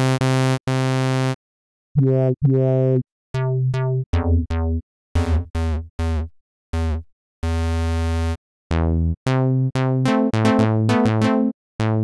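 Sawtooth synth notes from the Phalanx sampler, played one at a time on a keyboard while filter-envelope presets are switched, about a dozen notes with short gaps. Some notes stay evenly bright; others are plucky, their brightness falling away quickly as the filter envelope closes the filter.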